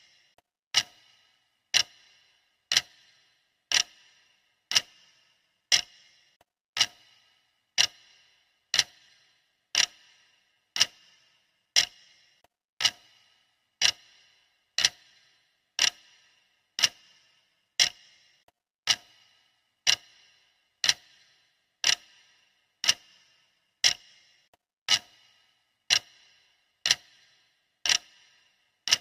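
Clock ticking steadily, one sharp tick about every second, each with a short metallic ringing tail.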